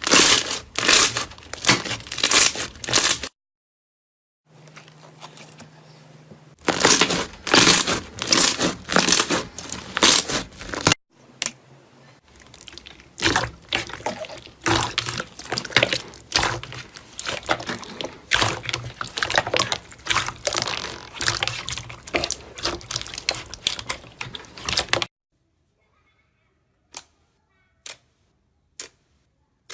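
Close-miked crackling, crunching sounds of slime being squeezed and pressed, in several separate bursts with brief pauses between them. Near the end only faint, evenly spaced clicks remain, about one a second.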